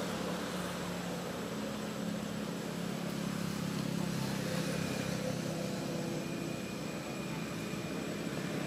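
A steady low engine hum over a constant background hiss, a little stronger over the first half.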